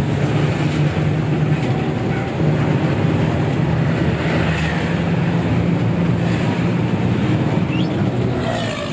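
Hino RG bus engine running steadily under way, a continuous low hum with road noise.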